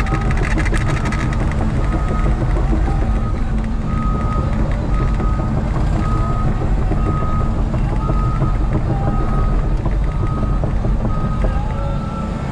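Cat tracked excavator's diesel engine running steadily as the machine travels, with its travel alarm beeping about once a second. Brush crackles briefly in the first second as the rake carries a pile of branches.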